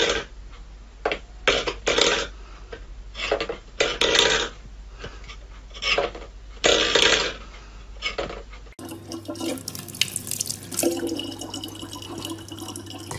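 Small metal bowl clattering and scraping on a wooden floor in short bursts every second or so as a cat paws at it. About nine seconds in, this gives way to a tap running a thin stream of water steadily, with a low hum.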